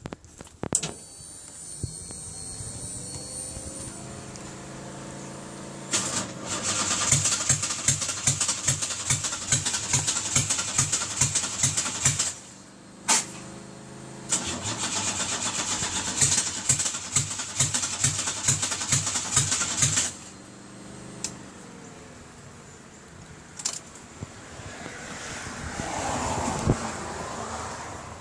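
1989 Buick Century's starter cranking the engine twice, about six seconds each, with an even chugging rhythm, and the engine not catching: a no-start despite a new fuel pump and fuel lines. A steady hum comes before the first crank.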